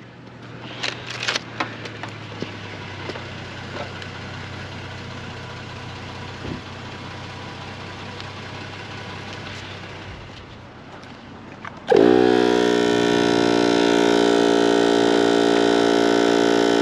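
A few light clicks of handling over a low steady hum. About twelve seconds in, a machine starts abruptly and runs steadily with a loud, many-toned drone and a slight regular pulsing.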